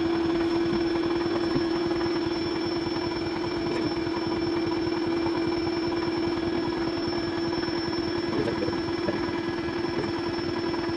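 Airbed's built-in electric air pump running with a steady hum, inflating the queen-size mattress.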